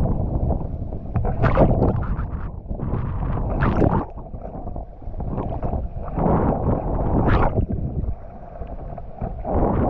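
Strong wind buffeting the microphone with rough sea water splashing and surging in several bursts, easing off for a couple of quieter stretches.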